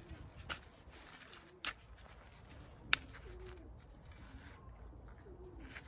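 A pigeon cooing several times in short, low, wavering notes. A few sharp clicks and rustles from gloved hands digging in garden soil, the loudest click about three seconds in.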